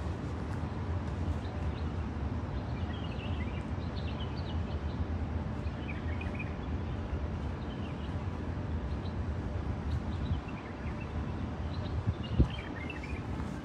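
Outdoor ambience: a steady low rumble with small birds chirping briefly now and then.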